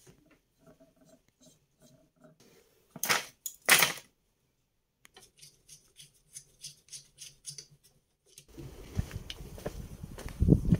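Handling noise from a hand-held brushless motor and propeller rig: light clicks, two sharp clattering knocks about three seconds in, then a run of light ticks. Near the end, wind noise on the microphone and footsteps outdoors.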